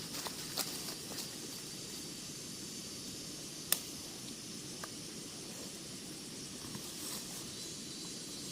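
Steady outdoor hiss with a few sharp clicks or snaps, the loudest a little under four seconds in.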